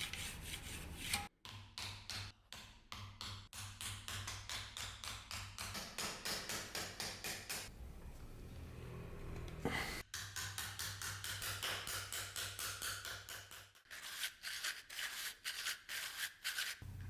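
Rapid, rhythmic hand-tool strokes rubbing or scraping against material, about seven strokes a second in bouts. The strokes pause for about two seconds a little before the middle, and there is a sharp click about ten seconds in.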